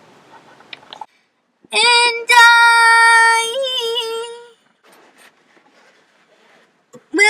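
A high voice singing one long held note for about three seconds, wavering slightly as it ends; a second held note starts just before the end.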